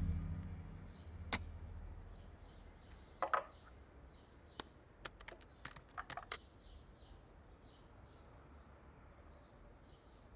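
Scattered sharp clicks of typing on a computer keyboard, about a dozen in the first six and a half seconds, over faint bird chirps. A car's low rumble fades out in the first second.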